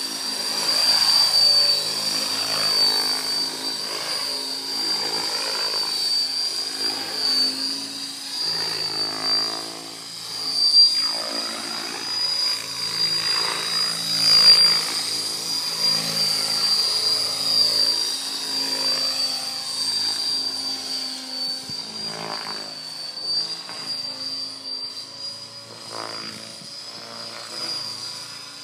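Logo 800 electric radio-controlled helicopter flying 3D aerobatics: a steady high-pitched whine from the drive, over rotor-blade whooshing that keeps swelling and fading as the helicopter manoeuvres.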